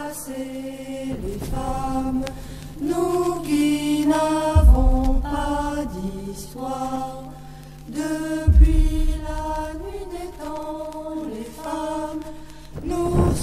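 Background music: a held, chant-like melody moving note by note over a steady low drone, with two deep bass hits.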